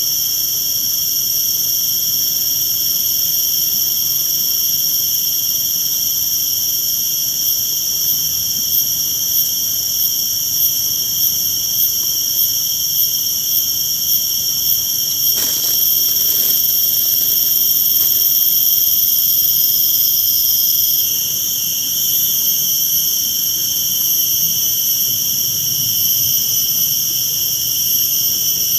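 Loud insect chorus, crickets and cicadas, with several shrill tones held steady together. The highest one pulses about twice a second for several seconds midway, and there are a couple of soft knocks around the middle.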